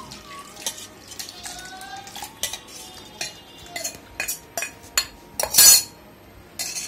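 Stainless steel spoon and pot clinking and scraping against a steel mixer-grinder jar as a cooked onion-tomato mixture is spooned and poured in: a run of clinks with short metallic ringing, the loudest clatter about five and a half seconds in.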